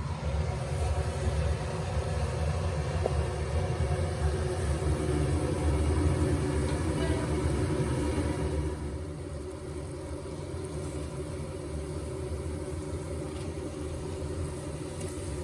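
A steady low rumble that drops somewhat in level about eight and a half seconds in.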